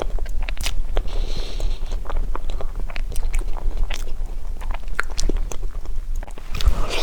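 Close-miked eating sounds of someone chewing sesame crepe cake: many small, sharp clicks and soft wet noises, over a steady low hum.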